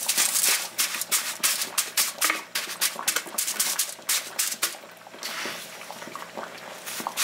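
Wet coarse salt being scooped, pressed and spread by hand over aluminium foil: a run of quick, gritty scrapes and crunches, with a short lull about five seconds in.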